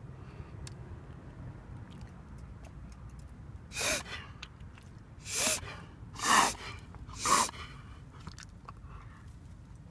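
Borzoi dog making four loud, harsh breath sounds about a second apart, starting about four seconds in. The owner wonders whether this is reverse sneezing.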